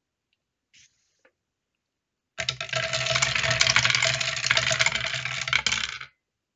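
A handful of polyhedral dice clattering down the resin spiral ramp inside an acrylic tube and out into the tray: a dense, rattling run of clicks lasting about four seconds that stops suddenly.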